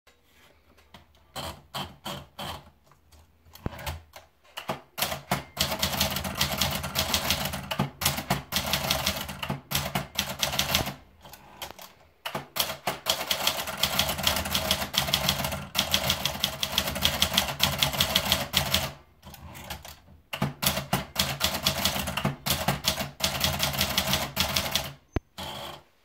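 Adler Tippa manual portable typewriter: a few scattered clicks as the paper is wound in, then fast, steady keystrokes, typebars striking the platen in long runs broken by short pauses between lines.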